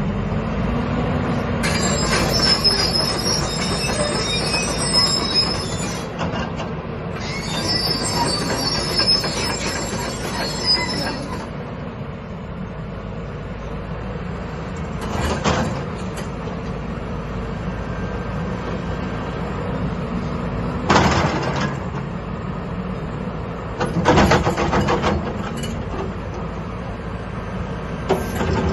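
2016 JCB JS220LC tracked excavator at work, its diesel engine running steadily under a high metallic squeal that comes in two spells of about four seconds each. Later come a few short, louder bursts of noise.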